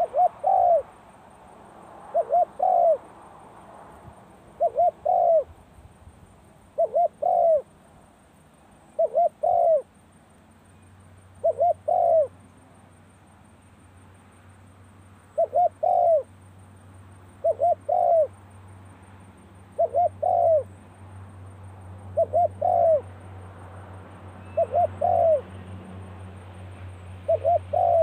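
Spotted dove cooing: about a dozen short phrases, each a quick group of two or three notes, roughly one every two seconds, with a longer pause near the middle.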